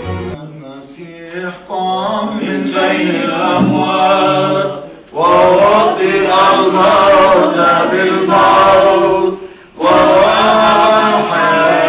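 Liturgical chant sung by voices in long phrases, with two brief breaks between phrases, about five and ten seconds in.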